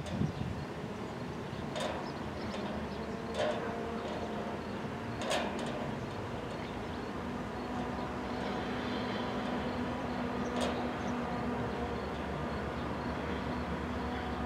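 An approaching CSX freight train's EMD SD40-3 diesel locomotive running, a steady low engine drone that grows a little louder later on. A few sharp knocks are heard at uneven intervals.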